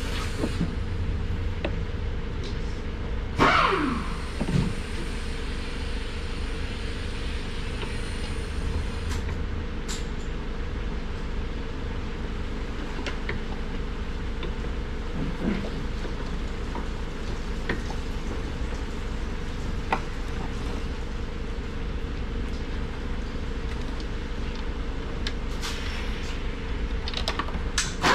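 Rear strut being fitted by hand into a car's wheel well, heard as scattered light clicks and knocks of metal parts, a short falling squeak about three seconds in and another short squeak midway, over a steady low background hum.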